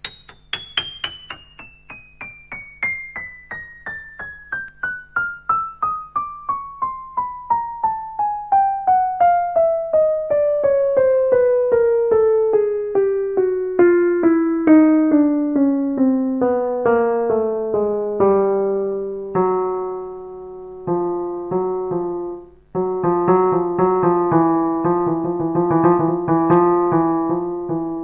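Kurzweil KA90 digital piano playing single notes one after another, about three a second, stepping steadily down from the top of the keyboard to the middle. Near the end it moves to a few held notes and then repeated chords.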